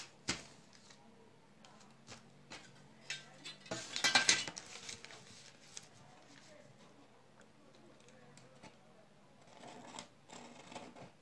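Light clicks and rustles of a plastic hip curve ruler being set down and shifted on pattern paper, loudest about four seconds in, then a pen scratching along the ruler's edge near the end.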